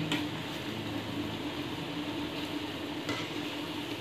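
Gulab jamun dough balls sizzling steadily in hot oil in a steel kadhai on a low flame, stirred with a slotted steel spatula. A couple of light clicks of the spatula against the pan come at the start and about three seconds in.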